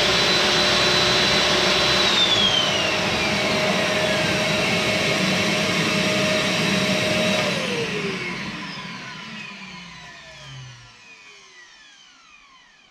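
OZITO 2000 W table saw and its connected shop vacuum running, then switched off one after the other: a high whine starts falling about two seconds in, and from about seven seconds in the main machine noise winds down in pitch and fades away near the end.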